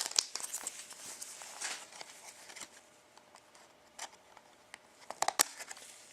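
Trading cards being handled: faint rustling and light clicks of card stock, with a few sharper taps about four and five seconds in.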